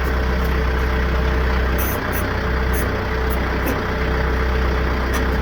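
Branson F50 compact tractor's diesel engine idling steadily, with a constant whine over the engine hum and a few faint light ticks.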